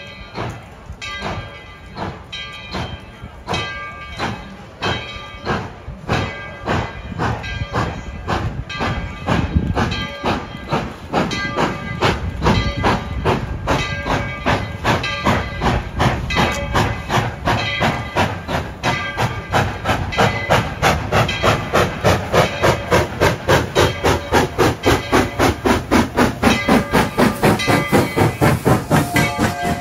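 Tweetsie Railroad No. 12, a three-foot-gauge 4-6-0 steam locomotive, working past with its bell ringing in a steady rhythm. Its exhaust chuffs grow louder and quicker as it comes close, and a whistle note starts just at the end.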